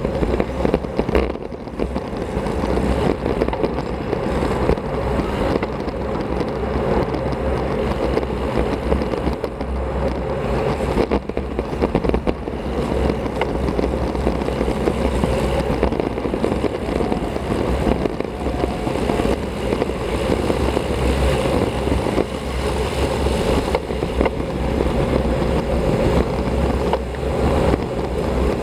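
Steady wind rush and rumble on the microphone of a bike-mounted action camera as the road bike rides along at speed.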